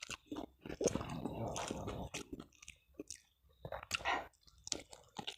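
Close-up mouth sounds of a person eating crisp fried food: wet chewing and crunching in a run of short clicks, thickest about a second in.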